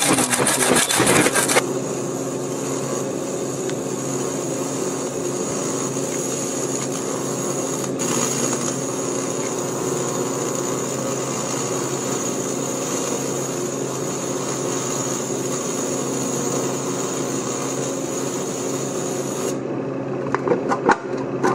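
AC TIG welding arc on thin aluminum can metal: a steady buzz with a high hiss that holds for about eighteen seconds, then cuts off near the end. It follows about a second and a half of harsh scratchy scrubbing, and a lower hum and a few clicks are left after the arc stops.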